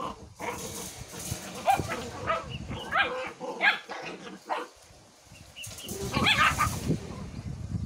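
A litter of puppies yipping and barking as they wrestle and tug at a cloth: a string of short high calls through the first half, a brief lull, then a louder cluster about six seconds in.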